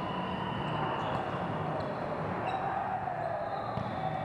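Steady echoing din of a big indoor volleyball tournament hall, with many games and spectators going at once. A few sharp knocks of balls being struck stand out from it.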